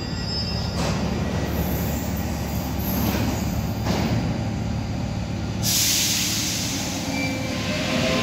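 Paris Métro MP14 rubber-tyred train pulling out past the platform screen doors: a steady low rumble with a few clicks, a hiss starting about six seconds in, and a rising motor whine near the end as it gathers speed.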